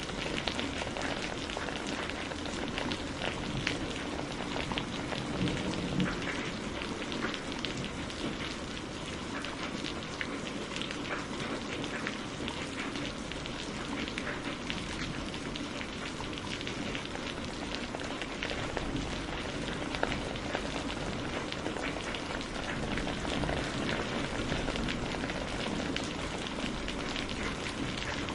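Steady rain falling on a surface, with a dense patter of individual drops and an even hiss.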